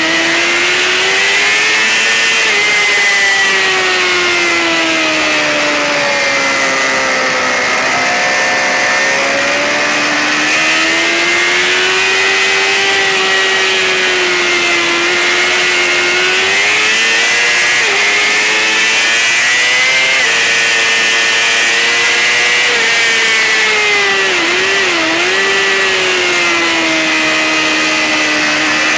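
Racing sportbike engine running hard at high revs, its pitch rising and falling smoothly and steadily, with a short dip about 25 seconds in. Wind rush sits over it throughout.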